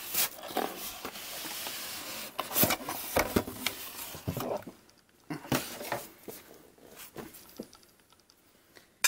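Cardboard scraping and rustling as a boxed action figure is slid out of a brown cardboard shipper box, followed by several knocks of the boxes being handled and set down.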